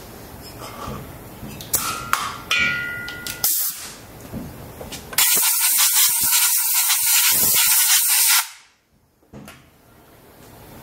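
A few metallic clinks with a brief ring, then a compressed-air blow gun hissing in one steady blast of about three seconds that cuts off sharply, blowing out the freshly tapped holes by a cylinder head's tappet bore.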